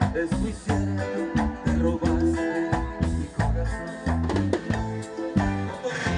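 Live Latin band music: an instrumental passage with guitar over a rhythmic bass line and steady percussion.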